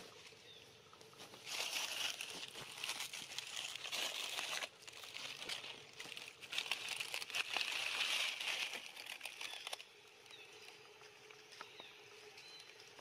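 Dry leaf litter rustling and crackling in two stretches of a few seconds each, with a quieter lull between them.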